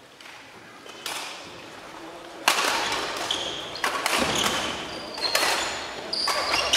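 Badminton rackets striking a shuttlecock in a rally, about six sharp cracks at uneven intervals that echo round the sports hall. After some hits come short high squeaks, like shoes on the wooden court.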